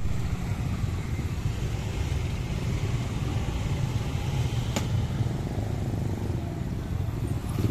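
Motorcycle engines running among parked and moving bikes, a steady low rumble, with one short sharp click a little under five seconds in.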